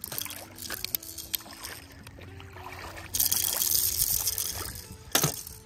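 Water splashing and sloshing as a plastic animal toy is rinsed, loudest for a second and a half about three seconds in, with one short sharp sound near the end, over soft background music with a simple stepping melody.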